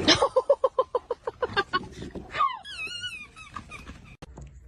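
A dog vocalizing: a rapid run of short yips, about seven a second, fading out. Then comes one wavering, warbling high whine-howl of about a second.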